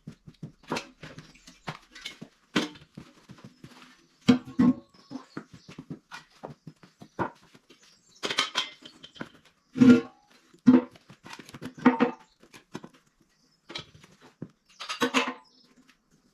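Irregular clanks and knocks of steel being handled and set down, some strikes ringing briefly, with the louder ones around eight to twelve seconds in and near the end.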